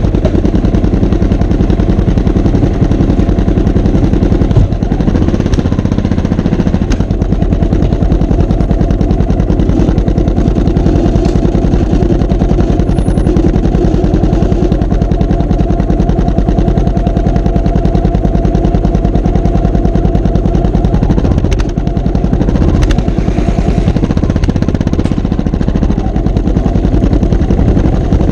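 Motorcycle engine running loudly through a Yoshimura TriOval aftermarket exhaust, a steady stream of rapid, sharp firing pulses with a few brief changes in pitch along the way.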